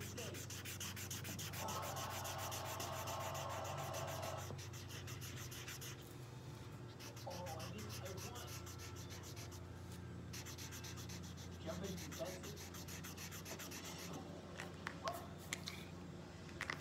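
Felt-tip marker scribbling fast back and forth on paper lying on a hard tile floor, colouring in a shape: a dense, rapid scratching that pauses about six seconds in and picks up again around ten seconds. A few light clicks near the end.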